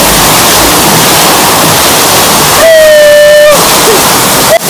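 Loud, steady rush of falling and splashing water from water-park spray features, with a steady high tone lasting about a second midway.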